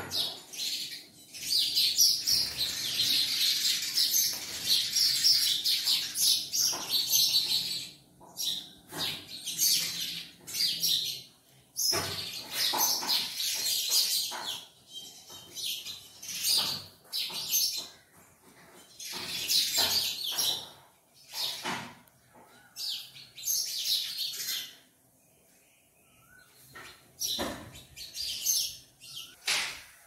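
House sparrows chirping: a dense run of high chirps for the first several seconds, then shorter bouts with pauses between them.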